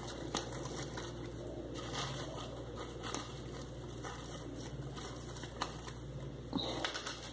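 Faint crinkling of a thin plastic bag with a few small clicks as a wire clip is untwisted from its neck.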